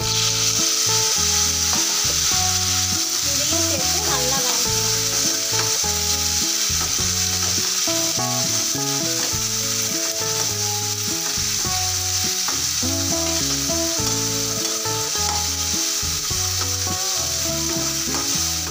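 Chopped tomatoes sizzling in hot oil with fried shallots and garlic in a nonstick kadai, the sizzle jumping up at once as they go in, then stirred with a perforated metal spatula. The sizzle holds steady throughout.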